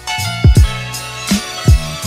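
Music with a drum beat: deep kick drum hits that drop in pitch, sharper drum hits and sustained notes.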